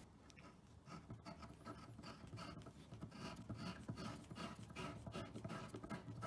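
A long metal assembly screw being turned by hand into a pre-drilled hole in a shelf panel: a faint, irregular scratching as the threads grind into the board and the fingers rub on the screw.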